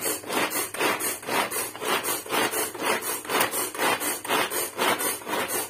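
Hand-pulled cord food chopper worked fast, about three pulls a second: a repeated zipping rasp as the cord is drawn out and recoils and the blades spin through onion, garlic and ginger, chopping them fine.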